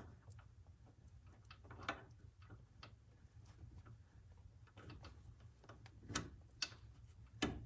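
Faint, scattered metal clicks and taps of a steel clevis pin being fed through a clutch control yoke and the ear of a clutch control tube, with a few sharper clicks near the end, over a steady low hum.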